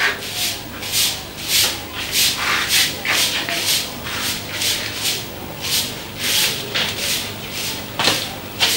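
A short, handleless straw broom sweeping a cement floor: brisk swishing strokes, about two a second.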